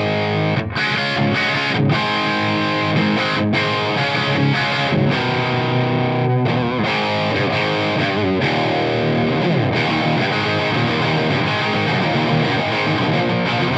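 Electric guitar played with heavy overdrive through a freshly repaired Marshall JCM800 2203 100-watt tube head into a Marshall cabinet with G12-65 speakers, preamp volume on 10 and master barely at 2. It plays a continuous distorted riff with several downward slides.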